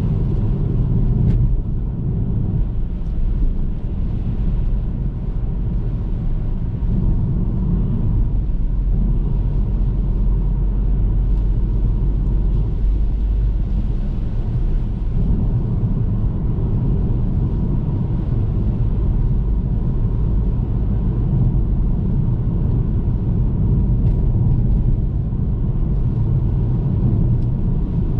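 Car being driven at a steady pace: a continuous low rumble of road and engine noise that holds level throughout.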